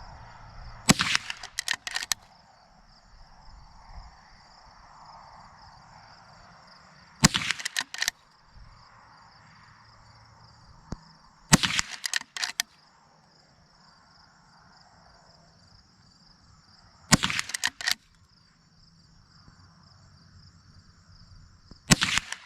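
Henry Golden Boy .22 lever-action rifle fired five times, roughly every five seconds, each sharp shot followed by quick clicks that fit the lever being worked to chamber the next round. A steady high insect chirring sounds behind it.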